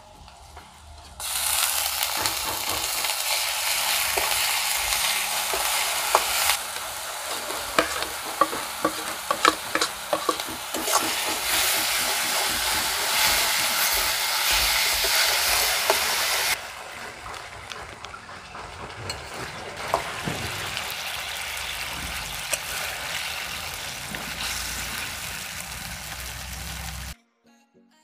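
Rohu fish pieces frying in masala in a metal kadai, sizzling while a spoon stirs and scrapes against the pan with many small clicks. The sizzle starts about a second in, drops to a softer level about halfway through, and cuts off suddenly near the end.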